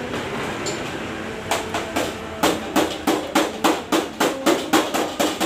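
A rapid series of hammer blows on metal, about three a second, starting about one and a half seconds in and growing louder, each with a short ringing tail, over a steady background hiss.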